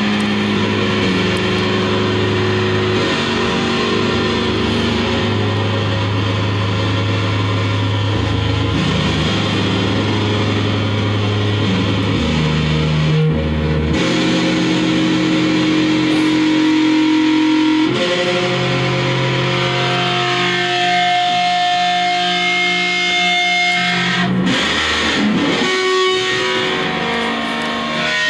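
Electric guitar feedback through fuzz distortion: long, sustained droning tones over a noisy wash. The held notes change pitch every few seconds, and the low drone drops out about two-thirds of the way through, leaving higher feedback tones.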